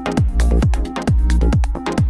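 Electronic backing music with a steady, fast drum beat and heavy bass.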